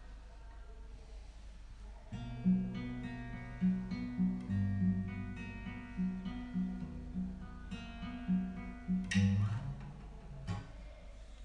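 Acoustic guitar playing an instrumental intro, picked notes and strummed chords that come in about two seconds in over a faint low hum. A hard strum comes near the end, after which only a few notes ring.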